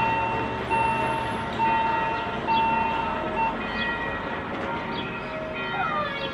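Level-crossing warning bell ringing in a steady repeated pattern, one stroke about every second, while the crossing's barrier arms lower and close ahead of a train.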